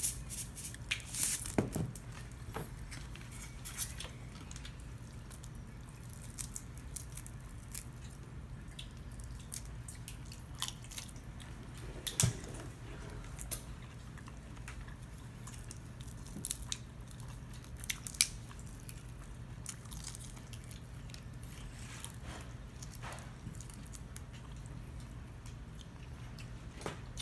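Cooked crab and prawn shells being cracked and peeled apart by hand over a paper plate: scattered small clicks and cracks, a few sharper snaps, over a steady low hum.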